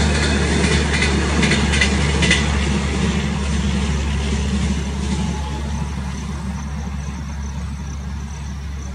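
The tail of a Rajdhani Express passenger train, its end-on-generation power car last, rolling past and drawing away. A steady low hum runs under the rumble of wheels on rail, with a few clacks in the first couple of seconds, and the sound slowly fades as the train recedes.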